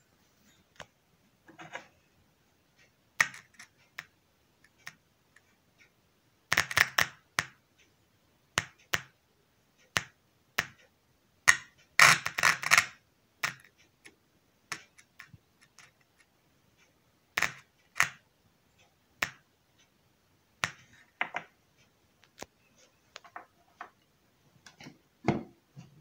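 Irregular clicks and short crackles from a loudspeaker wired through a coupling capacitor to the output of a homemade switch-mode power supply. There is no steady hum or whine between them.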